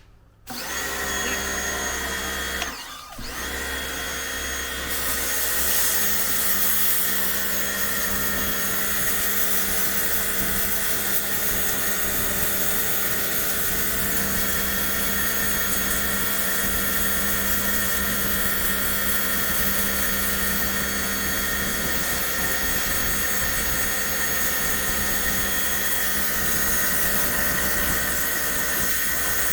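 Makita 240 V electric pressure washer running: its motor and pump start about half a second in, stop briefly near 3 s, then run steadily with the hiss of the spray.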